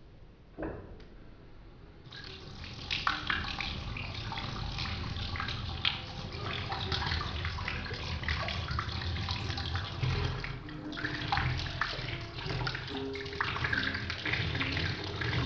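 Water running from a bathroom tap and splashing into the sink, starting about two seconds in. Low held musical notes come in during the second half.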